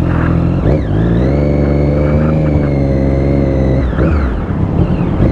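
Triumph Daytona 675's three-cylinder engine pulling at a steady pitch under light throttle. Its note dips and picks up again about a second in, then falls away about four seconds in as the throttle is eased.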